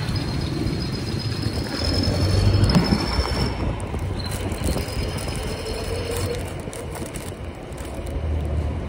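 Roadside street traffic running steadily, with a thin high whine that comes and goes during the first half and stops a little past halfway.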